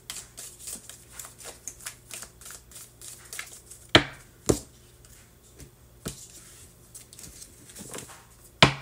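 A deck of tarot cards being shuffled by hand: a quick run of riffling clicks, then a few sharp taps as cards are knocked or laid on the table. The loudest taps come about four seconds in and near the end.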